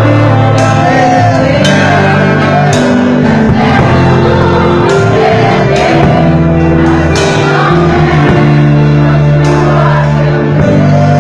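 Live church worship music: a band with keyboard chords and drum kit, cymbal crashes every second or two, with a voice singing and shouting over it.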